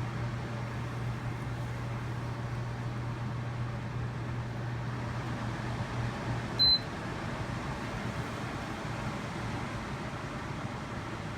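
Honeywell CHS122AE evaporative air cooler running with a steady airy noise and a low hum, noise the owner finds abnormally loud on first use and blames on the oscillation and water-pump system. A single short high beep sounds about two-thirds through, after which the low hum eases.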